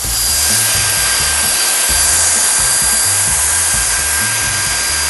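A power tool running steadily to spin off the nuts that hold a Sea-Doo jet pump on its studs: an even, high hiss with a faint whine, starting suddenly and cutting off suddenly just after the end.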